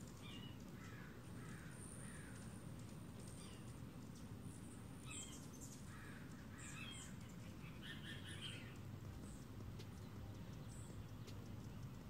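Faint, short bird calls coming in small clusters, a run of three in the first two seconds and more in the middle, over a steady low background rumble.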